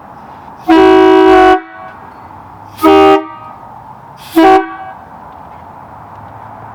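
Hadley and Grover trumpet-style truck air horns blown in three blasts: one held for about a second, then two short toots about a second and a half apart.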